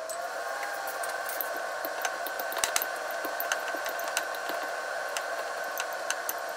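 A hand-held masher clicking and scraping against a ceramic bowl as cooked sweet potato is mashed, in irregular sharp taps. Under it runs a steady whirring hum with a faint tone.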